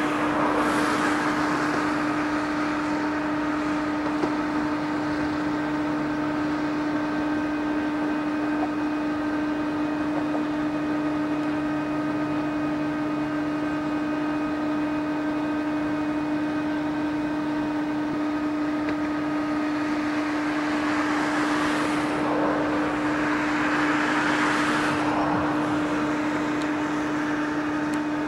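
Henschel diesel shunting locomotives running at a steady engine speed, a constant drone with higher steady tones above it. Swells of hissing noise rise at the start and twice near the end.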